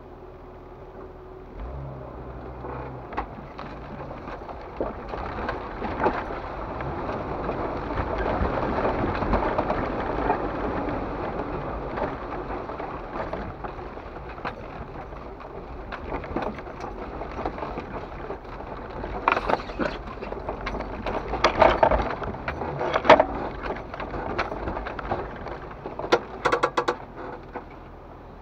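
Jeep Wrangler TJ driving through a shallow creek crossing and up a rocky dirt trail: the engine pulls away, water splashes around the tyres, then tyres and suspension knock and clunk over rocks, the loudest clunks coming in a cluster near the end.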